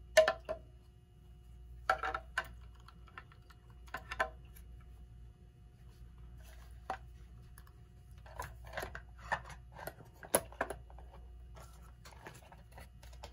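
Irregular clicks, knocks and light clatter of a Telechron Selector clock being handled and fitted back into its case, in several short bursts, the sharpest near the start and about ten seconds in.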